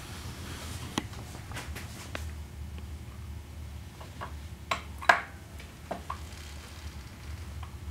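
A few light metallic clicks and clinks, the sharpest about five seconds in, as a Harley-Davidson six-speed main drive gear on its installation-tool bolt is slid through the transmission case bearing. A low steady hum sits underneath.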